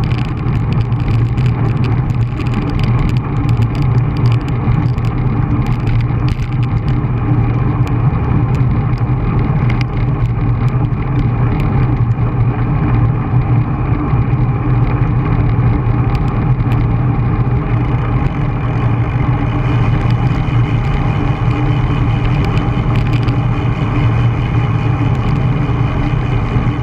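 Steady wind rush and tyre hum from a bicycle riding on asphalt, picked up by a camera mounted on the bike, with scattered light ticks and knocks from the road surface.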